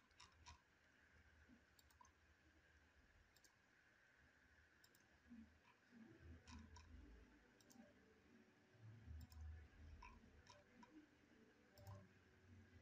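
Faint computer mouse clicks, about a dozen at irregular intervals, over near-silent room tone with a few soft low rumbles in between.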